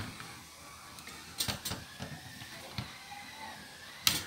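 Clicks and knocks of parts being handled and fitted into the opened tape mechanism of a Philips VR355 video cassette recorder. A few sharp clicks, two close together about a second and a half in, and the loudest near the end.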